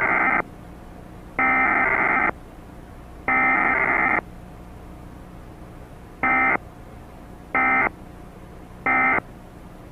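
Emergency Alert System SAME data bursts, heavily degraded by generation loss into buzzy, distorted tones over a low hum: three bursts of about a second each, then three short bursts, typical of the alert header followed by the end-of-message code.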